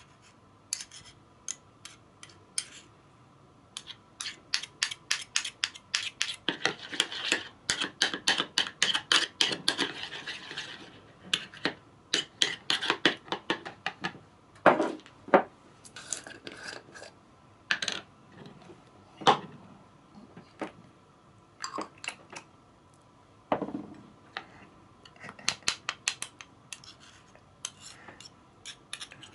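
Metal spoons clinking and scraping against each other and a plastic mixing bowl as thick paste is scraped off a measuring spoon and stirred into sauce. A quick run of taps fills the first third, then scattered clinks follow.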